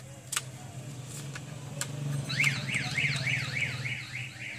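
Electronic warbling alarm, like a car alarm, sounding rapid rising-and-falling chirps about four times a second. It starts about halfway through, over a steady low hum.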